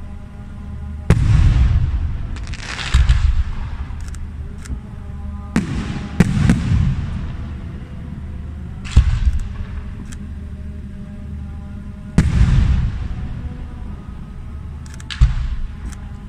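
Aerial firework shells bursting: about seven deep booms a few seconds apart, each trailing off in a fading rumble, with a few lighter pops between them.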